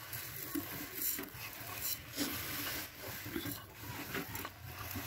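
Dry, uncooked long-grain biryani rice rustling and pattering as a hand sweeps it across a stainless steel plate, the grains scraping and ticking against the metal.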